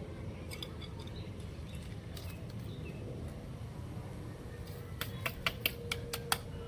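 A quick run of light, sharp clicks or taps, about six in a second and a half, starting around five seconds in, over a steady low rumble.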